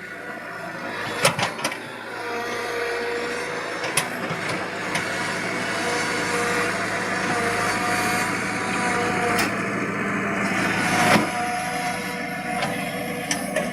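Backhoe excavator engine running steadily, with sharp metallic clanks and knocks now and then.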